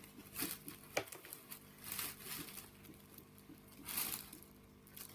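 Packaging rustling and crinkling with a few light knocks as items are handled and rummaged out of a box, in several short spells.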